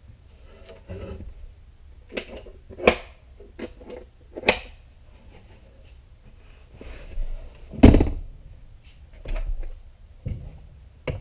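Knocks and thuds of carpeted plywood sleeper-platform panels being handled and a folded rear seat back being swung upright in an SUV cargo area; several separate knocks, the loudest thump about eight seconds in.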